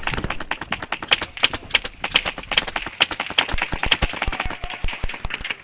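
Rapid, irregular sharp clicks and snaps of airsoft guns firing, several shots a second, with a low rumble underneath that stops about three seconds in.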